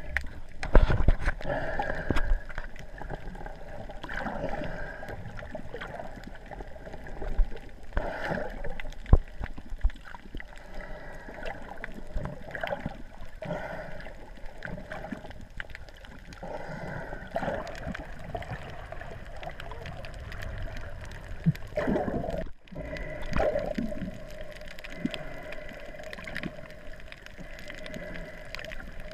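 Muffled underwater gurgling and sloshing of water heard through a camera's waterproof housing just below the surface, swelling louder every few seconds.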